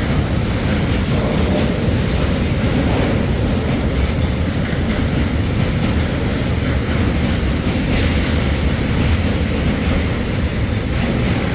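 Train passing close by: a loud, steady rumble of wheels on rails, with faint clicks through it.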